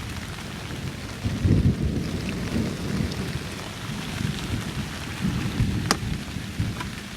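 Heavy rain falling steadily, with thunder rumbling low and unevenly; the rumble is loudest about a second and a half in. A single sharp click comes near the end.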